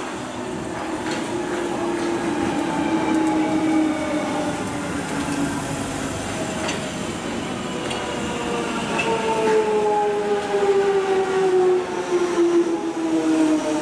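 London Underground Jubilee line 1996 stock train pulling into the station: its traction motors whine with a pitch that slowly falls as the train brakes, over wheel noise and clicks from the rail joints. The whine grows louder as the cars draw alongside.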